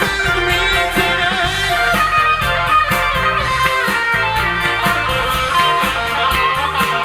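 Live band playing an instrumental passage between sung lines, with guitar to the fore over bass and a steady cymbal beat from the drums.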